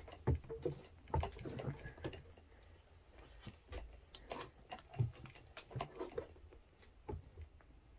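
Rubber tyre being forced by hand over the rim of an Inmotion V12 electric unicycle wheel, with irregular knocks, thumps and rubbing as the bead is pushed on.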